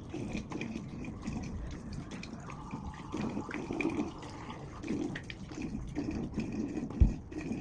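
Water running from a tap and splashing while a face is rinsed at a sink, uneven and irregular, with a single sharp thump near the end.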